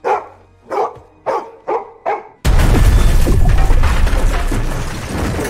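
A golden retriever barks five times in quick succession, then about two and a half seconds in a sudden loud crash breaks in, followed by a dense din of smashing debris with a deep rumble.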